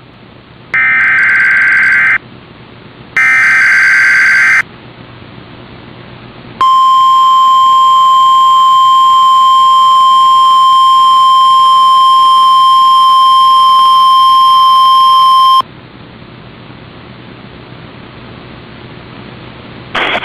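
NOAA Weather Radio weekly test signal. Two bursts of the SAME digital header, each a warbling two-tone data squawk about a second and a half long, come near the start. After a short pause the steady 1050 Hz warning alarm tone sounds for about nine seconds, then it cuts off to faint static hiss.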